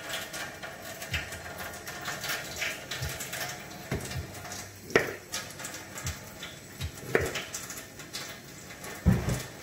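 Kitchen knife cutting raw potatoes on a plastic cutting board: scattered knocks of the blade meeting the board among light kitchen clatter, the sharpest knock about five seconds in and a heavier thump near the end.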